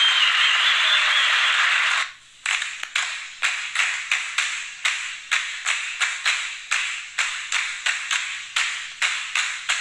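Steady noisy fairground bustle that cuts off abruptly about two seconds in, followed by a steady beat of sharp taps at about two and a half a second, part of a percussive music track.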